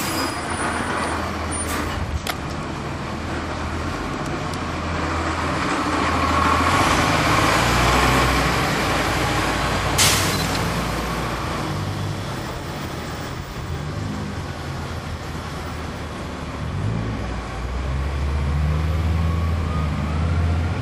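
Transit bus's Cummins ISC diesel engine running, its sound swelling and easing as the bus drives, with a short sharp burst of noise about halfway through.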